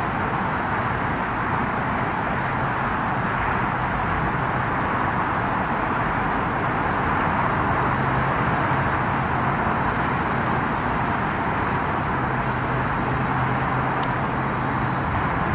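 Steady road-traffic noise: a continuous hiss of tyres on a busy road, with a low engine hum fading in and out a few times.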